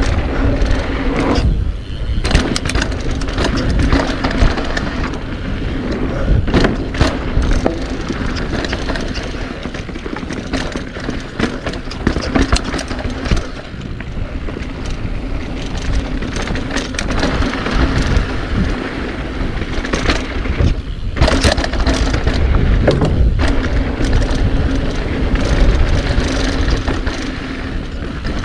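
Mountain bike riding down a dirt bike-park trail: continuous tyre noise on dirt with a low rumble, and frequent clattering knocks and rattles from the bike over bumps.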